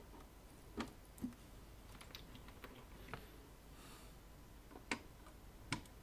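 Glass vacuum tubes being pushed into the 9-pin sockets on a small tube amplifier's chassis: sharp clicks as the pins seat, two about a second in and two near the end, with fainter ticks and scrapes between.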